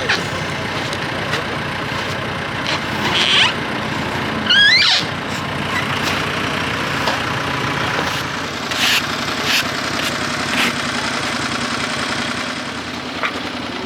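Engine running steadily at idle, with a brief rising squeal about four and a half seconds in and a few short knocks near the middle.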